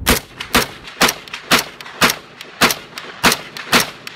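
AR-15 rifle firing steel-case ammunition in steady semi-automatic shots, about two a second, eight shots in all, each with a short echo. The rifle is fitted with a reduced-power hammer and trigger spring set, and every round goes off.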